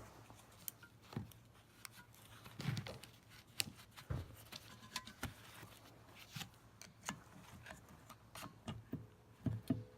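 Irregular light clicks, taps and knocks of hand tools and loose parts being handled while a semi-hermetic compressor is taken apart, a few louder knocks about three to four seconds in and again near the end.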